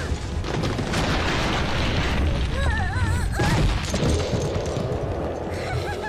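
A loud, continuous rumbling cartoon sound effect, with a high-pitched cartoon voice warbling briefly about halfway through.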